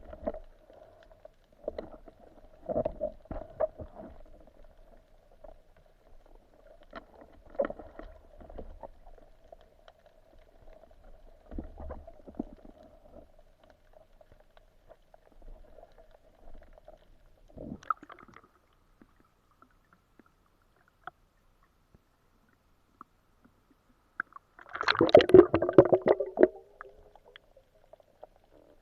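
Muffled underwater sound: a faint steady hum with scattered clicks and knocks, and a louder churning burst about 25 seconds in that lasts about two seconds.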